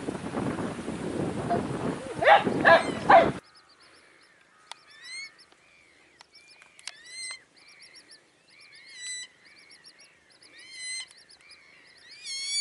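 Wind buffeting the microphone, with a few harder gusts, cuts off abruptly about three seconds in. A much quieter stretch follows in which Eurasian coots give short, high calls that bend and fall in pitch, repeated every second or so, with a few sharp clicks between them.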